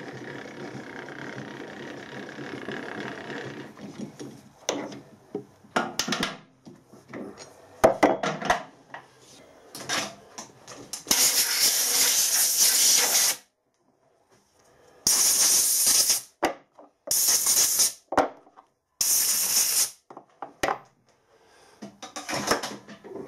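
Metal clicks and clinks as the jaws are wound out of a three-jaw lathe chuck with its chuck key. About halfway through, compressed air from a blow gun hisses into the empty jaw slots in one burst of about two seconds, followed by three shorter one-second blasts.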